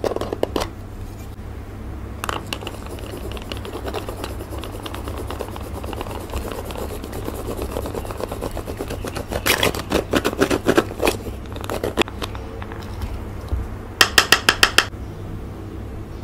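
Pressed highlighting powder being scraped and crushed to loose powder in its plastic compact: a dense, scratchy crackle that swells in the middle. Near the end comes a quick run of about seven sharp taps in under a second, over a steady low hum.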